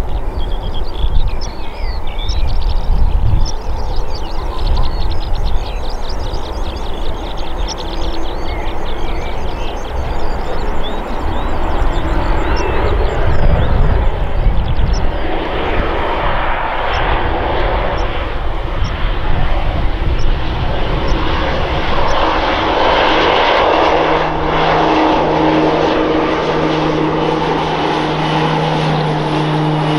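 PZL-Mielec M28 Skytruck's twin Pratt & Whitney turboprop engines, growing louder as the aircraft flies low past, with a steady propeller hum setting in for the last several seconds.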